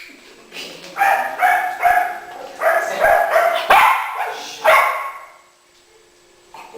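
A dog giving a quick run of about eight short, high-pitched yipping barks.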